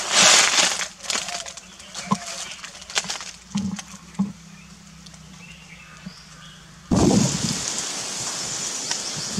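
Dry leaf litter crackling and rustling: a loud crunch at the start, then scattered crisp snaps. About seven seconds in it switches abruptly to a steady hiss with bursts of rustling.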